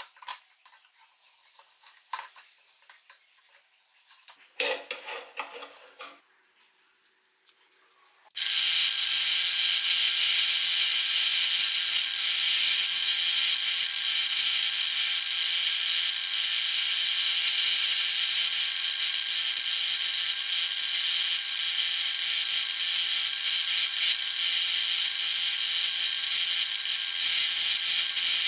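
Light clicks and scrapes of metal parts being handled. About eight seconds in, a pillar drill comes in abruptly, spinning a wire wheel with a small metal door fitting held against it; it gives a loud, steady hiss over a steady motor hum.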